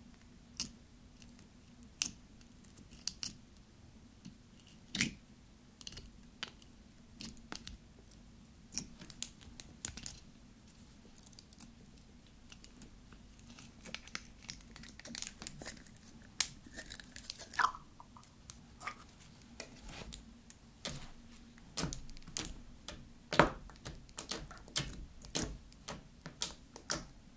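Purple slime squished and poked with long hard claw nails, giving scattered sticky clicks and small pops that come more often in the second half.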